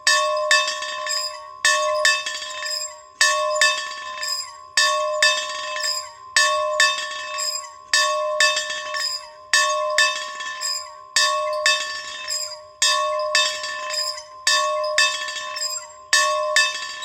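A bell being rung over and over in a steady swinging rhythm: a loud stroke about every second and a half with lighter strokes between, each one ringing on into the next.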